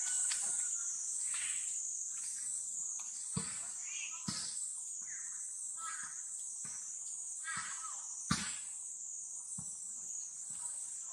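Steady high-pitched insect chorus, with a few sharp knocks (the loudest about eight seconds in) and faint short chirps.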